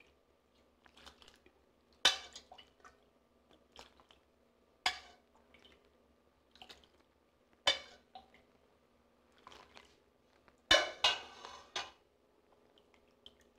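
A metal ladle clinks against a stainless steel pot as water is scooped out and poured into a bowl of flour. Single sharp clinks come about every three seconds, then a quick run of several near the end, with faint splashing between.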